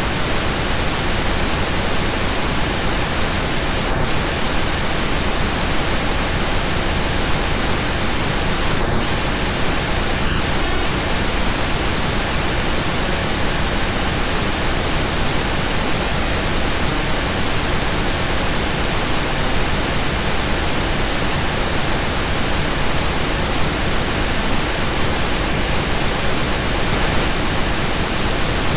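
Steady, even hiss of pink/white noise from a relaxation sound track, unchanging throughout, with faint high tones that come and go every second or two.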